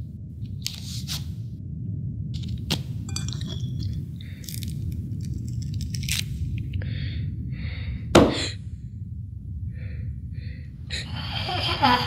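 Zombie chewing and gnawing on a bone: short scrapes and crunches at irregular intervals over a steady low drone. There is one loud crack about eight seconds in, and a swell of noise near the end.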